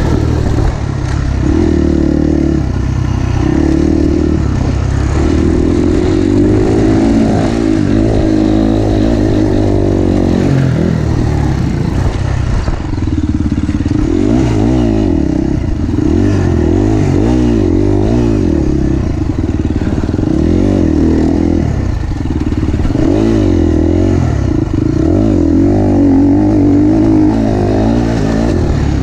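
KTM 350 SX-F's single-cylinder four-stroke engine revving up and falling back again and again as the dirt bike is ridden hard around a motocross track, the pitch climbing and dropping every second or two.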